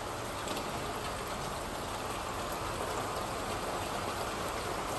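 Steady rain falling, an even hiss with a few faint drips.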